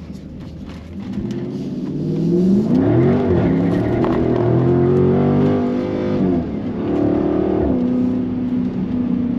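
Dodge Charger's engine revving up and easing off under throttle. The revs climb about two seconds in and dip briefly, then are held high. They drop off about six seconds in, with one more short rise and fall shortly after.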